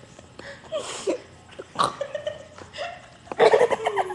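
A person's voice making short, unclear vocal sounds in scattered bursts, loudest about three and a half seconds in.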